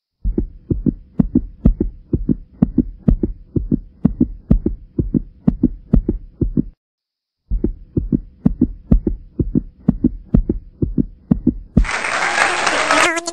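Quick, even low thumps in a heartbeat-like rhythm, stopping for under a second midway and then resuming. Near the end a loud rushing noise takes over.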